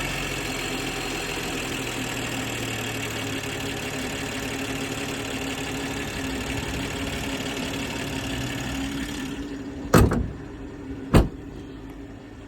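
BMW B58 turbocharged straight-six idling from a cold start, with the ticking that the owner hears only for about the first minute after a cold start. About nine seconds in the sound drops and gets duller, and two loud thumps follow, a little over a second apart.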